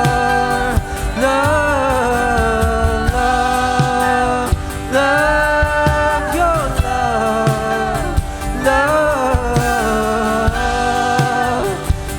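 Worship band playing a slow gospel song with a steady beat; sustained keys or voices hold long notes that shift chord every couple of seconds.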